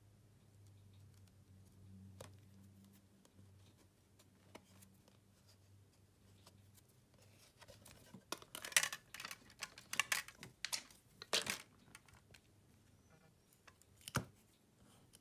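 Small-scale hand work on a smartphone being taken apart: a cluster of short scraping and tearing noises about halfway through, and one sharp click near the end, over a faint low hum.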